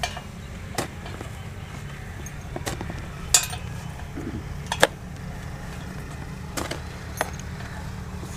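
Metal tools clinking against the bolts and fittings of a centrifugal water pump as it is mounted on a tubewell pipe: about six sharp clinks, a second or two apart, over a steady low hum.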